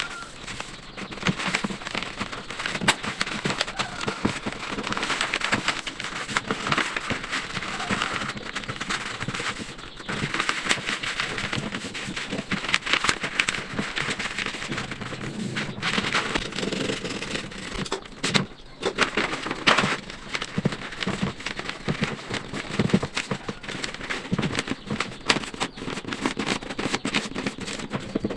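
Packaging being handled, crinkling and rustling in dense, irregular crackles.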